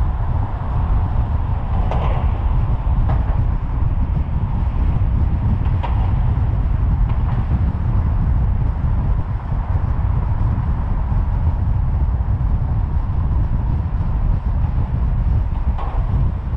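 Steady low rumble of a car driving along at road speed: tyre and wind noise, with a few faint short knocks along the way.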